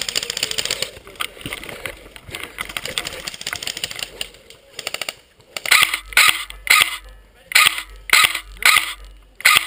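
Airsoft electric guns firing. A rapid rattling full-auto burst at the start, then from about six seconds in a string of short, sharp bursts at roughly two a second.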